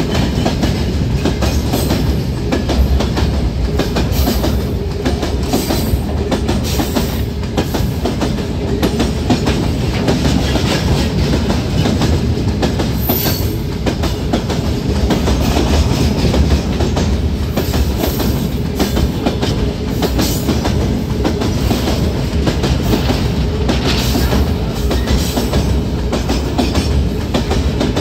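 Freight train of open-top gondola wagons rolling past at close range: a steady, loud rumble of steel wheels on rail with a rapid, continuous clicking of wheelsets over the track.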